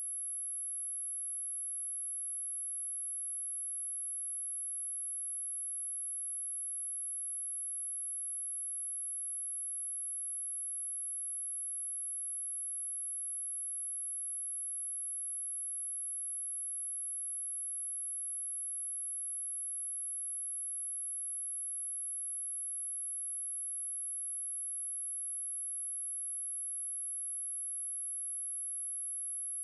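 A pure electronic sine tone at 10904 Hz, a very high steady whine held at one pitch and one level without a break: a speaker test tone, also played to clear water and dust from a speaker.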